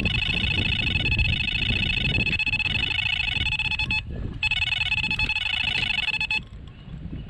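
Electronic carp bite alarm sounding a fast, continuous run of high-pitched beeps, signalling a take as a hooked fish pulls line off the reel. The beeping breaks off briefly about four seconds in, then resumes and stops about a second before the end. Wind rumbles on the microphone underneath.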